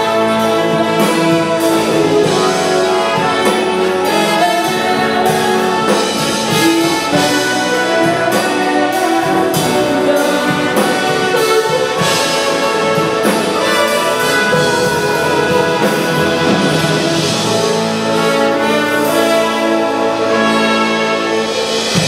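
Symphonic wind band playing, with brass prominent in sustained full chords.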